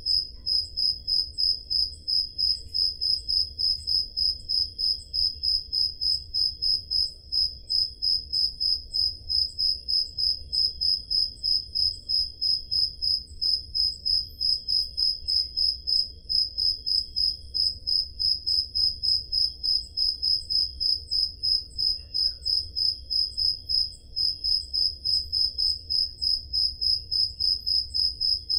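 A cricket chirping in a steady, even rhythm of about three high-pitched chirps a second, with fainter crickets chirping behind it.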